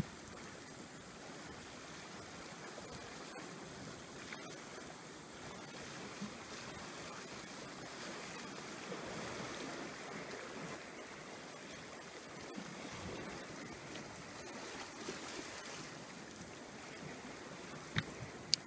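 Sea water washing and lapping against a breakwater: a steady, even wash, with two short sharp clicks near the end.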